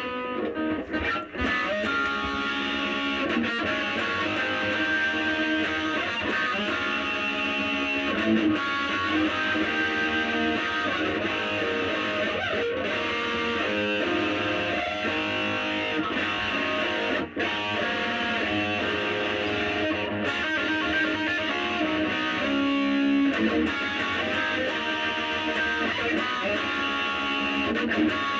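Electric guitar played through an EVH LBX-S 15-watt lunchbox amp head on its high-gain red channel, boosted by a Tube Screamer Mini overdrive pedal. The playing is continuous, with a brief gap about 17 seconds in.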